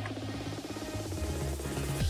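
Background electronic music with a steady beat and repeating synth notes.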